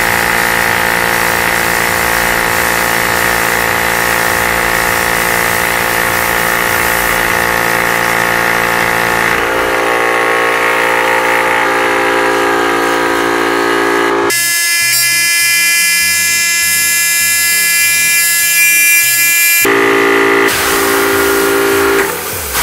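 Yong Heng portable high-pressure air compressor running with a loud, steady buzzing hum while it pumps air into an air rifle. The tone changes abruptly several times, most sharply a little past the middle, where the low hum drops out for several seconds before returning.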